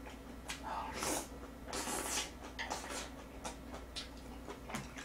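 A person eating with mouth sounds close to the microphone: chewing and small wet clicks, with two louder breathy slurps about one and two seconds in.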